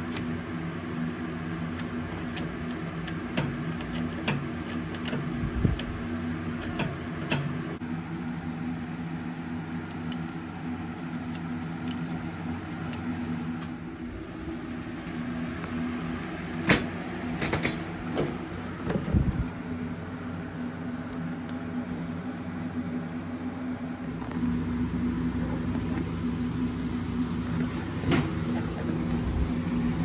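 Riding mower engine running steadily at idle, with a few sharp clicks and knocks from handling near the middle. Its sound gets a little louder and fuller about three-quarters of the way through.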